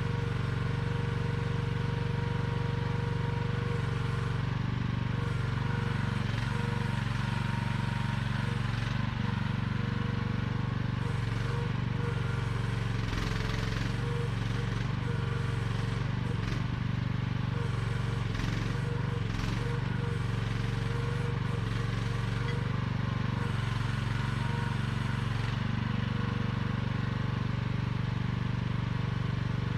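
AGT QH12R mini excavator's engine running steadily, its note dipping and recovering several times with some clatter between about 11 and 21 seconds in as the machine works.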